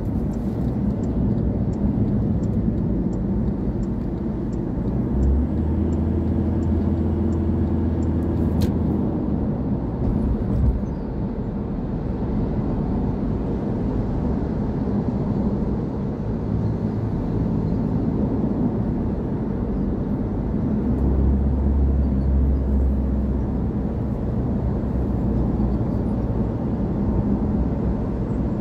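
Road noise inside a moving car's cabin: a steady low rumble of tyres and engine. A deeper hum swells in twice for a few seconds.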